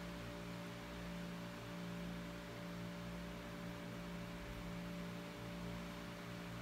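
Faint, steady low electrical hum made of several fixed tones, unchanging throughout.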